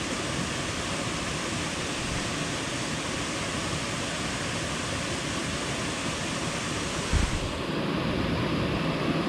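Steady rushing of a small rocky brook and its little waterfall, with one brief low thump about seven seconds in.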